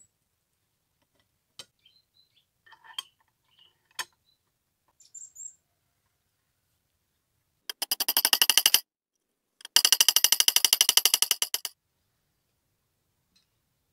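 Steel parts of an antique beam balance scale being fitted together: light metallic clicks and taps, then two loud grating rattles made of rapid clicks, the first about a second long and the second about two seconds long.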